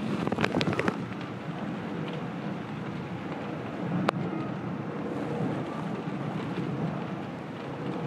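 Strong wind buffeting the microphone and steady rain. A quick run of sharp taps comes in the first second, and a single sharp click about four seconds in.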